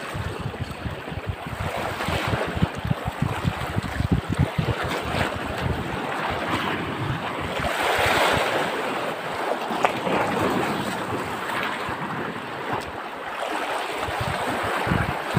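Sea waves washing over a shallow reef, with wind buffeting the microphone in gusts. A louder wash of water swells up about eight seconds in.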